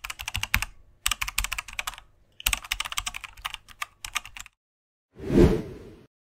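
Keyboard typing sound effect: three runs of rapid key clicks over the first four and a half seconds, then a single short rushing swell of noise about five seconds in.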